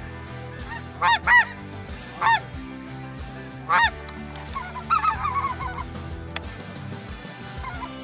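Snow geese calling in flight overhead. There are loud single high honks, each rising and falling, four times in the first four seconds, then a quicker chatter of many fainter calls about five seconds in.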